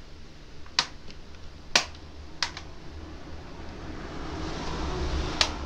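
Four sharp clicks from handling the Toshiba Dynabook laptop, the second the loudest, with a rising rustling noise near the end.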